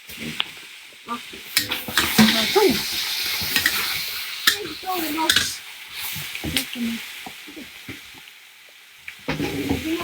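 Vegetables stir-frying in a hot pan: oil sizzling, while a metal spatula scrapes and clacks against the pan again and again.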